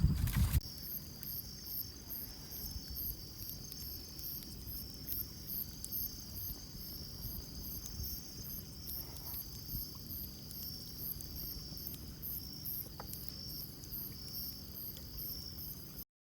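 Night insect chorus of crickets: a steady high trill with a pulsing chirp about three times a second, over a low steady rumble. It cuts off suddenly just before the end, after a louder sound in the first half second.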